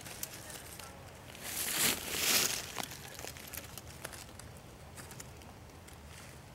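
Dry fallen leaves and twigs rustling and crackling as something pushes through the undergrowth, loudest for about a second from a second and a half in, then a few faint crackles.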